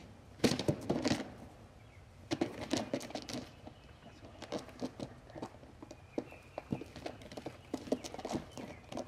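Wild turkey gobbler attacking a turkey decoy: flurries of wing beats, thumps and knocks as it flogs and strikes the decoy. The strikes bunch up about half a second in and again around three seconds in, then come in scattered single knocks.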